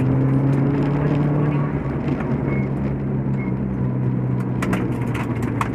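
Subaru Impreza STi rally car's turbocharged flat-four engine, heard from inside the cabin, holding steady revs on a gravel straight over road and tyre noise. A run of sharp clicks comes in near the end.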